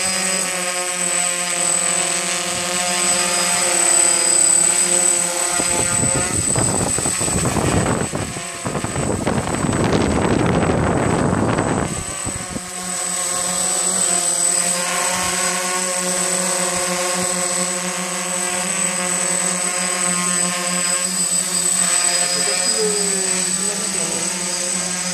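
DJI Flame Wheel F330 quadcopter hovering, its four electric motors and propellers making a steady multi-tone buzz. For several seconds in the middle, as it hangs directly over the microphone, the rotor downwash blows across it as a rushing wind noise.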